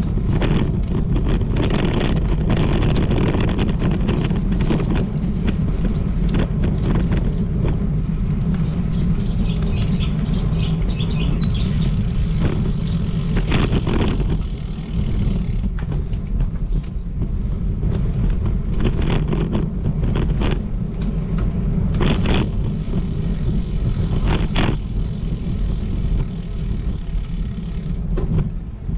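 Steady low rumble of travel along a path, rolling noise and wind on the microphone, with scattered short clicks and rattles.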